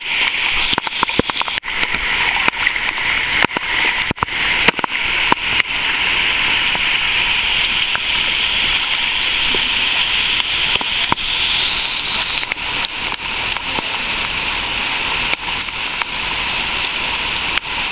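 People wading through deep floodwater, their legs sloshing and splashing with each step, the splashes thickest in the first few seconds. Under them runs a steady hiss.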